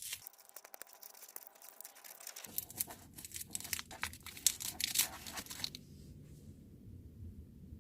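Halls cough drop wrapping being torn open and crinkled by hand to get a drop out. The crackling stops about three-quarters of the way through.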